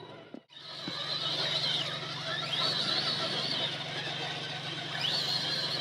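RC crawler truck's small electric motor and gearbox whining, the pitch rising and falling as the throttle is worked, over a steady low hum.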